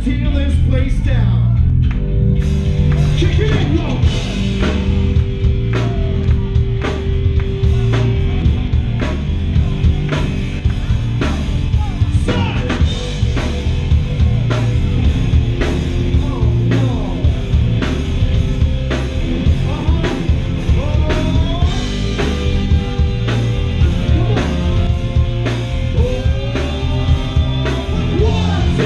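Rock band playing live and loud: drum kit, electric guitars and bass, with a vocalist singing over them. The cymbals come in about two seconds in.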